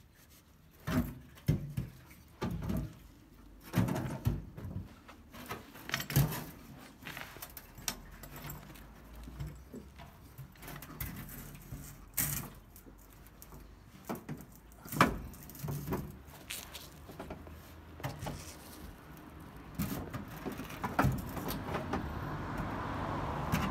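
Irregular knocks, clunks and scrapes of a steel Volvo 240 fuel tank, still holding some fuel, being wrestled up into place under the car and bumping against the underbody and the ground.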